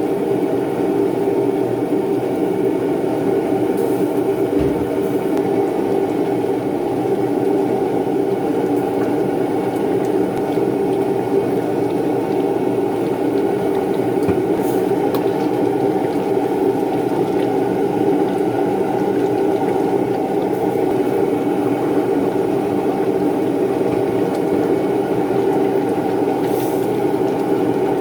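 A loud, steady machine roar that holds level without a break, with a few faint clicks over it.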